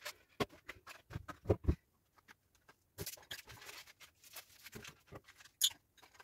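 Faint, scattered clicks and light knocks of small household objects being handled and set down, with quiet room tone between; a couple of louder knocks come about one and a half seconds in and a sharp click near the end.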